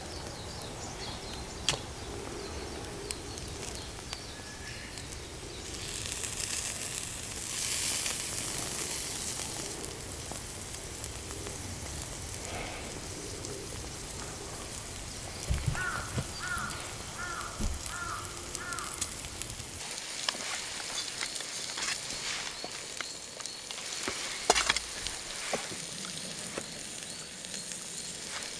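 Food frying and sizzling over a campfire, a steady hiss with scattered crackles and clicks. About halfway through comes a quick run of five short chirps.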